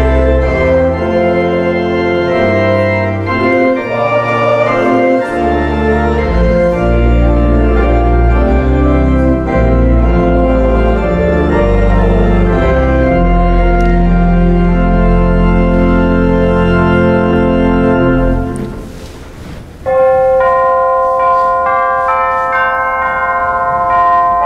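Church organ playing with a deep sustained pedal bass and full chords. About 18 seconds in it breaks off, and after a short gap clear bell-like chime tones start playing a slow melody.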